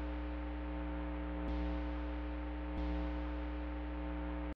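Steady buzzing hum and hiss of an electric guitar amplifier with a held droning tone, broken by two faint clicks, as a music intro. At the very end a loud distorted rock guitar riff with drums comes in suddenly.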